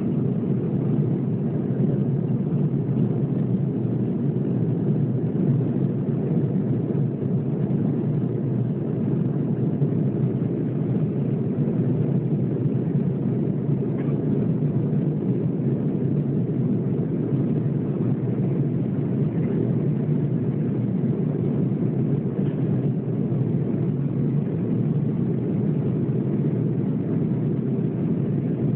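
Steady low cabin rumble of an Airbus A320 in its climb after takeoff: engine noise and airflow heard inside the passenger cabin, even and unbroken throughout.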